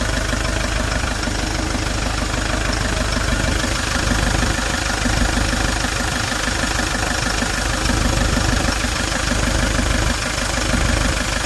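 Hyundai Porter II's D4CB 2.5-litre four-cylinder CRDi diesel idling steadily and smoothly, its broken oil pump timing chain newly replaced.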